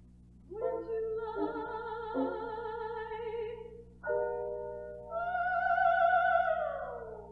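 Classical soprano singing long held notes with a wide vibrato over piano accompaniment. The loudest note near the end glides downward.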